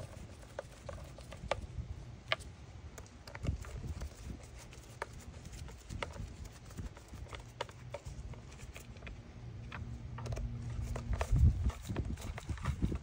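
Scattered light clicks and taps of a hand screwdriver turning small Torx screws into a plastic tool housing, with the housing being handled. A few louder bumps come near the end, over a faint low hum.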